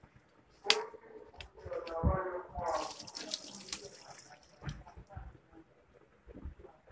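Toluene poured from an upended plastic bottle into a plastic bucket: liquid glugging and splashing for a couple of seconds, after a sharp click about a second in.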